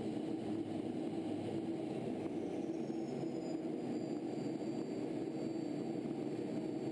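Steady in-flight cockpit noise of a T-38 chase jet: an even, unchanging rush of engine and airflow noise.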